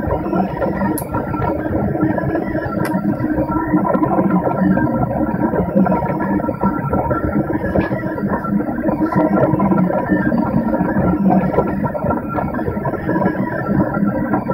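Delta 3D printer running while it prints in clay: a steady mechanical hum with constant whining tones from its motors and extruder, and a few faint clicks.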